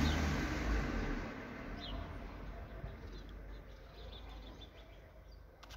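Low rumbling noise, loudest in the first second and fading away, with a few faint bird chirps after it.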